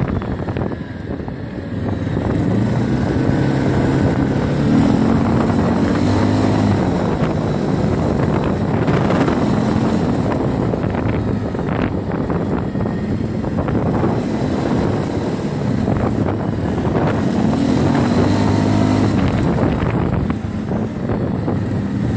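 Quad bike (ATV) engine running under way, its pitch rising and falling a few times as it speeds up and eases off, with wind noise on the microphone.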